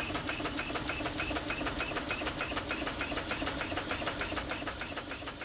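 Marine steam engine running steadily, its moving parts knocking and clicking in a quick, even beat.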